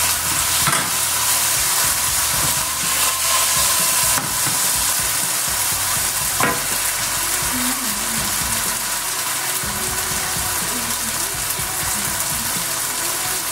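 Beef and garlic sizzling steadily in a frying pan, stirred with a wooden spoon, with a brief scrape about six and a half seconds in. The garlic is sticking to the bottom of the pan.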